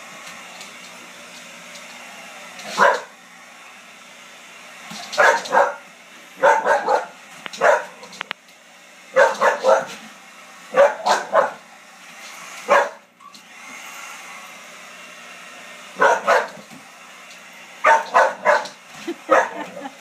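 A pit bull barking at a running hair dryer, in short single barks and quick doubles and triples a few seconds apart. The dryer's steady blowing hum runs underneath.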